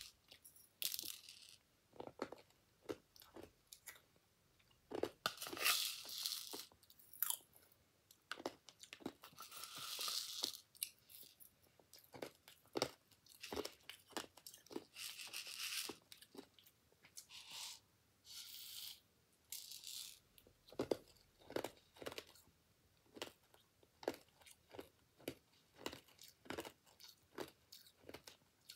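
A child crunching and chewing a mouthful of Nerds candy, with many short close crunches. A few brief rattles of the small candies in a plastic bowl come in between.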